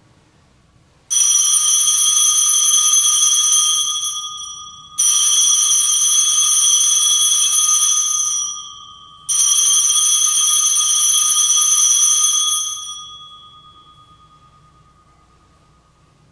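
Altar bell struck three times, about four seconds apart, at the elevation of the chalice after the consecration. Each stroke sets off a clear, ringing tone that holds for a few seconds; the last fades out slowly.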